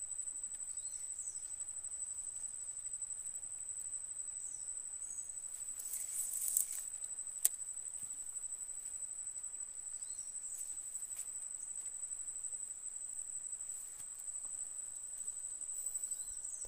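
A high, steady insect trill that pulses a few times a second. A brief rustle and then a single sharp click come about six to seven seconds in.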